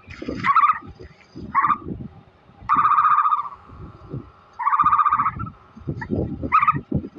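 Ostrich calling: five short higher calls, about one every one to two seconds, with runs of quick low pulsing sounds between them.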